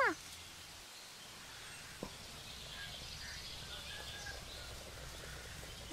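Quiet rural background with faint bird chirps and a low steady hum, broken by a single sharp click about two seconds in.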